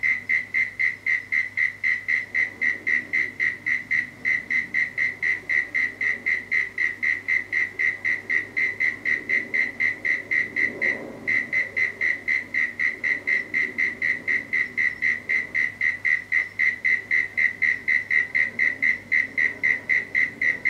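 A high-pitched chirp repeated steadily, about four chirps a second, with a short break about eleven seconds in.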